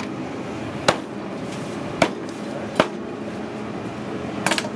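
Large knife chopping roast pork on a cutting board: sharp single chops about a second apart, with a quick double chop near the end, over a steady background hum.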